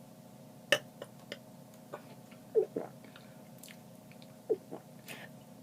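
Mouth and throat noises: a few sharp clicks, then three short, small throaty gulps, over a steady faint hum.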